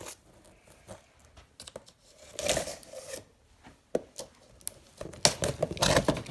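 Toy box packaging being torn open: a short ripping burst about two and a half seconds in, then a busier stretch of tearing and crinkling near the end.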